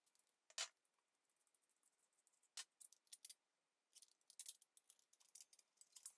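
Faint, scattered clicks and light metallic taps of a slitting saw blade, its arbor and the cap screw being handled, unscrewed and set down on a wooden bench, coming in small clusters.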